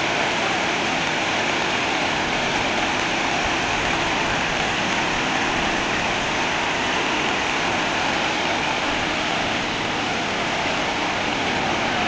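Waterfall rushing steadily, an even, unbroken hiss of falling water.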